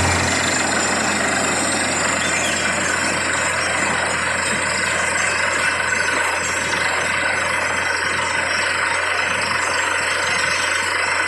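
Borewell drilling rig running steadily, a dense mechanical noise over a constant low drone.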